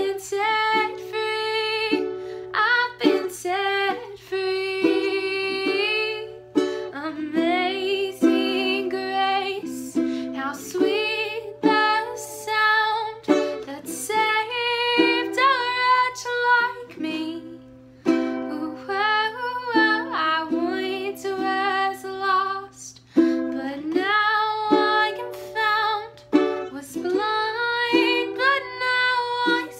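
Acoustic ukulele strummed and picked as the accompaniment to a hymn, with a woman's singing voice held over it on long notes.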